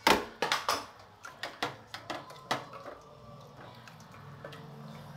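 Wooden spatula knocking and scraping against a stainless steel pot while stirring rice in coconut milk: a quick string of sharp taps over the first couple of seconds, the first the loudest, then quieter stirring.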